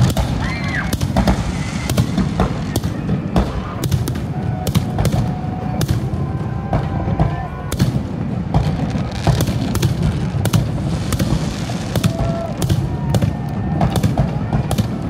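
Aerial firework shells bursting in rapid succession during a display: sharp bangs about twice a second over a continuous low rumble.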